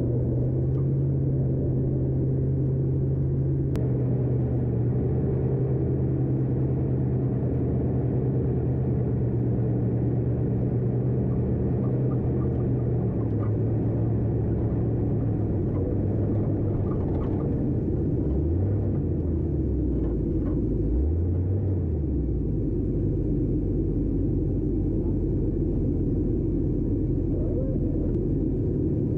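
A 4x4's engine running as it drives over desert sand, with a low rumbling noise of wind and tyres. The engine holds a steady pitch for the first half, eases off, then revs up and back down twice near the end.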